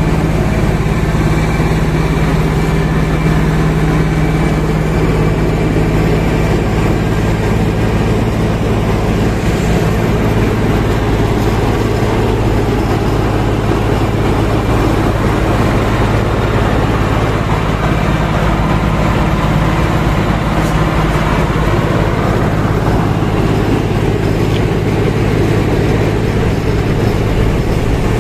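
Asphalt cold milling machine at work: its diesel engine runs steadily under the grinding noise of the milling drum and conveyor as the old road surface is cut up and loaded into a dump truck.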